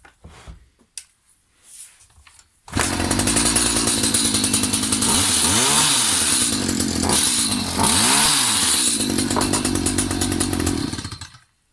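Two-stroke engine of a Stihl HS 45 petrol hedge trimmer running at high revs, starting abruptly about three seconds in, with two brief swells in pitch, then cutting off just before the end.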